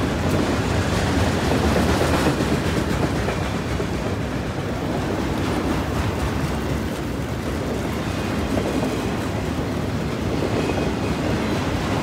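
Loaded autorack freight cars rolling past close by: a steady noise of steel wheels running on the rails.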